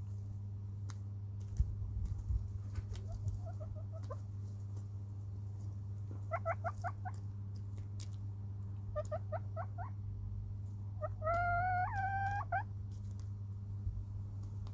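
Hens clucking softly in quick runs of four or five short notes, then a longer warbling call near the end, the loudest sound here, over light pecking taps and a steady low hum.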